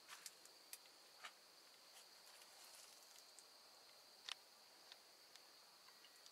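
Near silence, with a faint, steady, high-pitched insect trill and a few faint, scattered clicks.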